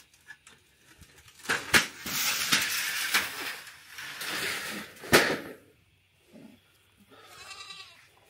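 Corrugated metal roofing sheet being lifted and dragged over grass, rattling and scraping, with two sharp metallic clangs. Near the end a goat bleats once.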